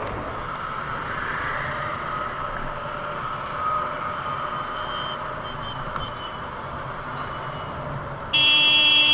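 Steady motorcycle engine and city traffic noise picked up by an action camera's built-in microphone while riding. Near the end a vehicle horn sounds once for about a second, loud and steady, and stops abruptly.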